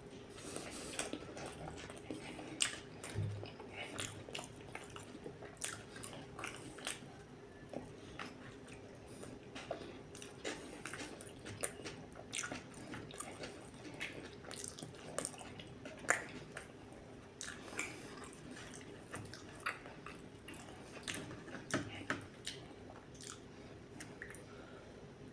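Close-miked chewing and biting of a burger: wet, irregular mouth clicks and smacks, several a second, over a faint steady hum.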